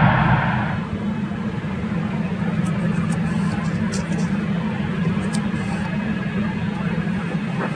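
Boeing 747-300 freighter's four GE CF6-50 turbofans: a loud rush of jet noise fades out within the first second, leaving a steady low rumble of the engines at low power as the jumbo rolls and taxis.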